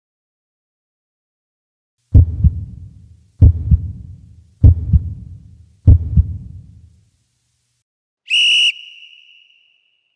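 Four deep double thumps, evenly spaced about a second and a quarter apart like a heartbeat, each dying away, then a short high whistle tone about two-thirds of the way through.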